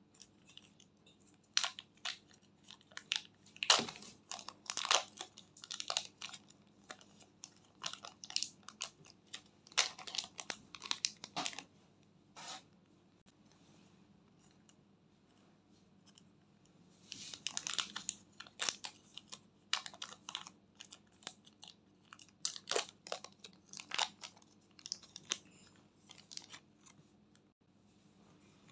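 Small plastic zip-lock bags crinkling and crackling in irregular bursts as soft clay is squeezed out of them, with a lull of a few seconds midway.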